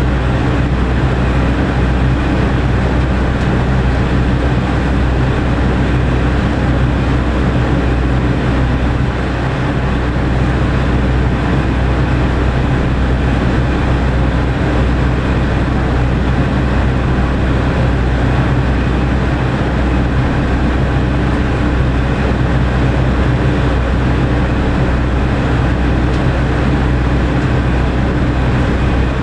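KiHa 47 diesel railcar's engine idling with the train at a standstill, heard from inside the car: a steady, unchanging low hum.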